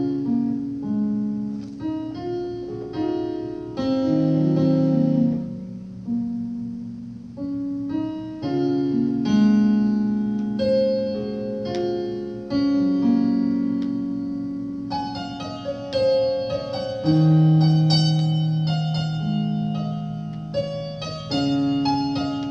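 Electric keyboard playing a slow introduction in a piano voice: sustained, overlapping chords that grow fuller, with more high notes, about two-thirds of the way through.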